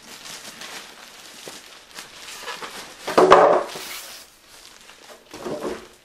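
Clear plastic wrap around a PC case crinkling and rustling as the case is handled, loudest in a burst about three seconds in.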